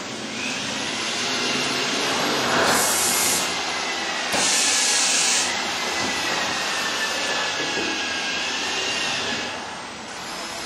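Automatic film-wrapping packaging machine running with a steady mechanical hiss. Two short, loud blasts of compressed air come about three and about four and a half seconds in, over a faint whine that drifts in pitch.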